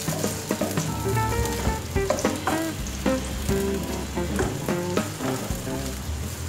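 Sliced red onions sizzling in hot oil, stirred around the pot with a spatula, with occasional scraping clicks. A tune of stepping notes plays underneath.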